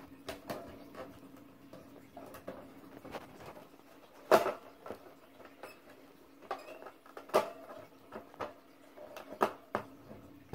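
Scattered light clicks and taps on a clear plastic enclosure holding a baby wood mouse, with sharper knocks about four, seven and nine seconds in, over a faint steady hum.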